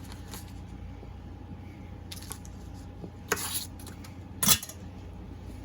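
Kitchen handling sounds over a steady low hum: a brief scrape a little over three seconds in, then a sharp clack about a second later, the loudest sound here.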